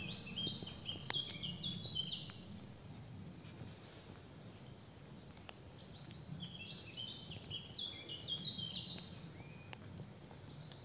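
Songbird singing two phrases of quick stepped notes, one at the start and one about six seconds in, over a low steady rumble.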